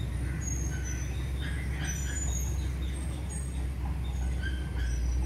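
Outdoor ambience: a steady low rumble with short, high chirps scattered through it.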